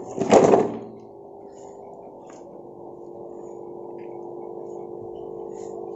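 A thermocol (styrofoam) icebox lid pulled open, with a short, loud scraping rub about half a second in, then a steady low hum with a few faint ticks.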